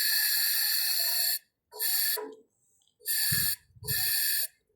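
Breathy hissing bursts, like a person breathing or blowing hard close to the microphone. The first lasts about a second and a half, and three shorter ones follow with brief silences between.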